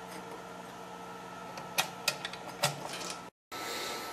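Steady electrical hum from the bench transformer and test gear, with a few light clicks and knocks of parts being handled between about two and three seconds in. The sound cuts out for a moment near the end.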